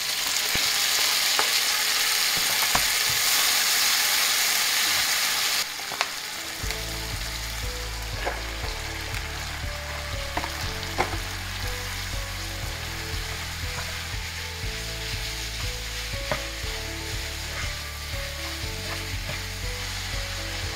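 Chopped tomatoes sizzling loudly as they hit hot oil in a frying pan, the hiss dropping off sharply about five seconds in. After that comes a quieter sizzle of minced beef and vegetables frying, with clicks and scrapes from a spatula stirring the pan.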